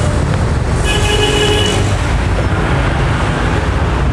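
Steady rumble of road traffic from a busy highway. About a second in, a vehicle horn sounds for about a second.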